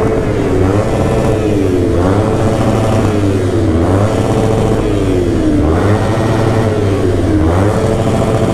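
Motorcycle engine revved hard in a tunnel. The pitch jumps up sharply and sags back again and again, over a constant low engine rumble.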